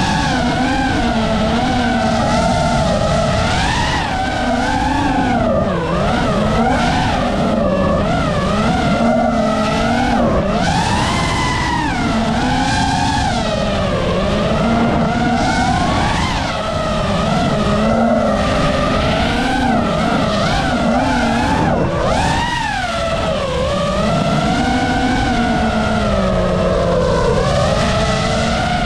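FPV racing drone's electric motors and propellers whining, the pitch rising and falling constantly with throttle through turns.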